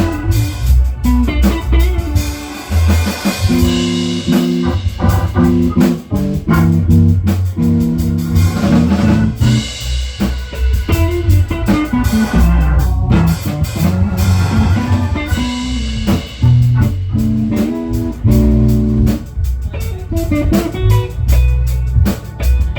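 Instrumental blues band music: guitar with drum kit and bass guitar.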